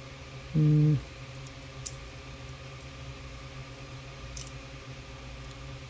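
A few faint clicks from a digital caliper being zeroed and its steel jaws slid onto a small 3D-printed PLA cube, over a steady hum. A short hummed 'mm' from a man about half a second in.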